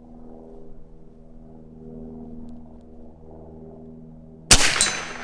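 Evanix Rex Ibex .457 big-bore PCP air rifle fires once, a sharp loud crack near the end, with a fainter hit on the steel plate target a fraction of a second later. The shot comes as the rifle's air pressure is dropping through its shot string. A steady low hum sits underneath throughout.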